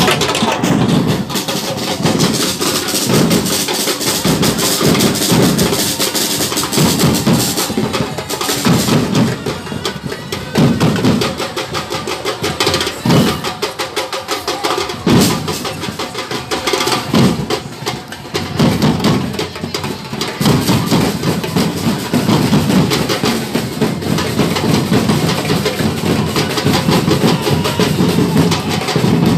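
Batucada percussion group playing: large bass drums beat a steady rhythm under a dense layer of quick, lighter drum hits.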